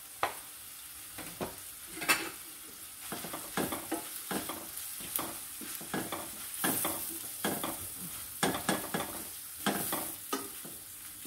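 Flaked salmon frying in oil in a skillet, sizzling steadily, while a wooden spoon stirs it, knocking and scraping against the pan many times.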